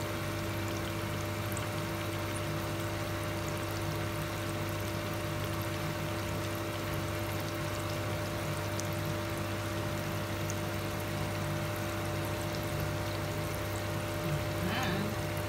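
Sweet potato (camote) chunks deep-frying in a pot of hot oil: a steady bubbling sizzle over a steady low hum. Near the end a wooden spoon stirs the pieces, adding a brief scrape.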